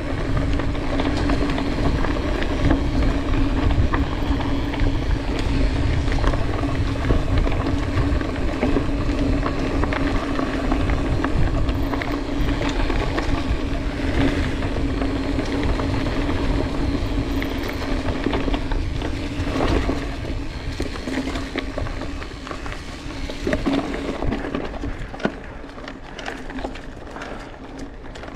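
Mountain bike in motion heard from an on-bike action camera: wind rumble on the microphone, rolling tyre noise with a steady hum, and small rattles and ticks. It eases off a little in the last few seconds.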